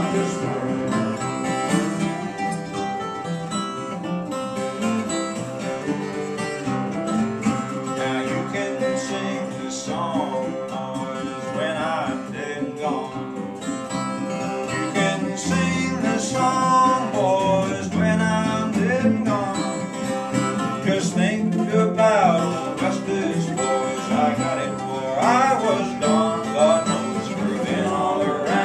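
Live acoustic old-time folk duo: an acoustic guitar and a long-necked mandolin-family instrument strumming and picking together, with voices singing at times.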